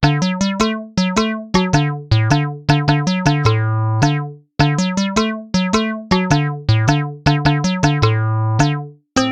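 Background music: a bouncy melody of short, quickly fading keyboard notes over a bass line, with a brief break about four and a half seconds in.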